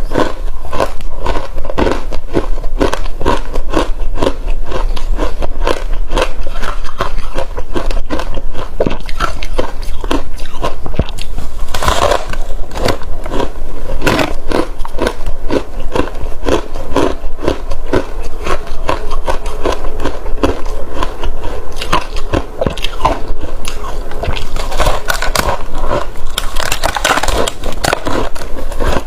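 Close-miked biting and crunching of frozen passion fruit ice: a steady run of crisp crunches, several a second.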